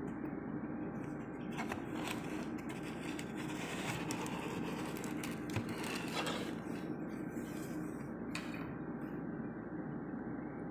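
A cardboard takeout box being opened and its paper liner handled, with scraping and crackling from about a second and a half in until near the end, over a steady background hum.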